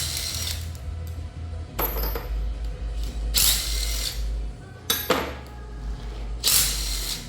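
Power tool running in short spells as the bolts holding the Tesla Model 3 drive unit housing together are backed out, with several sharp metallic rattles and clinks in between.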